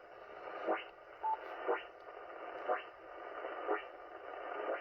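Ham radio receiver on the 80-metre band putting out a steady hiss of interference. A sweeping chirp repeats about once a second, and a short beep of a tone comes a little over a second in. This is the wide noise that is wiping out the band.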